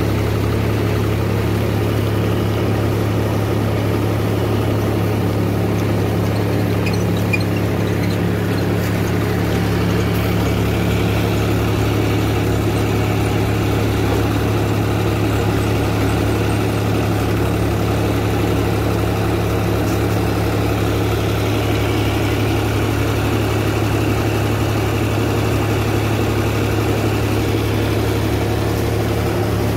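John Deere 5310 tractor's three-cylinder diesel engine running steadily under load, driving a rotavator that mulches banana leaves into the soil. It holds an even, unchanging hum throughout.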